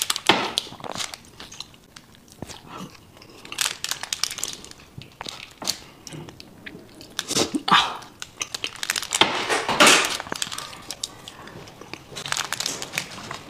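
Close-up eating sounds from a thick chocolate lava cake: a metal spoon scooping through the soft chocolate, and mouthfuls being chewed. The sounds are irregular and loudest a little past halfway.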